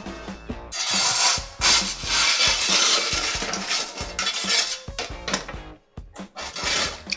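Metal bread peel scraping and clattering across the floor of a dome bread oven as baked loaves are pulled out, in several long scrapes, over background music.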